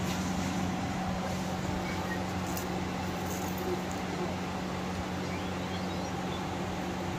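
A steady low hum with an even hiss, like a running motor or electrical hum, and a few faint clicks.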